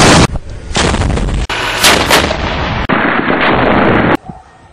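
Loud, distorted gunfire and heavy weapons fire from a firefight, in several short segments that change abruptly, with sharp individual shots about two seconds in and a brief drop in level near the end.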